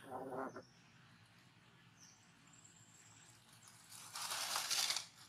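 Quiet outdoor ambience: a brief pulsing sound right at the start, faint high chirps, then about a second of loud rustling near the end.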